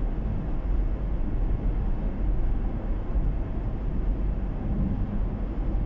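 Steady low rumble of a car cruising at highway speed, heard from inside the cabin: tyre, road and engine noise.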